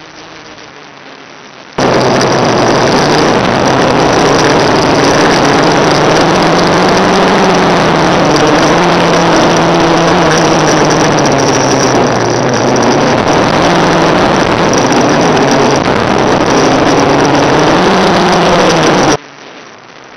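Small FPV quadcopter's motors in flight, heard as a drone whose pitch rises and falls with throttle, buried in loud hiss from the analog video link. It cuts in suddenly about two seconds in and drops out suddenly about a second before the end.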